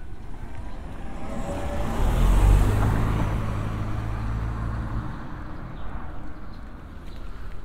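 A car drives slowly past close by: engine and tyre noise rise to a peak about two and a half seconds in, then fade over the next few seconds.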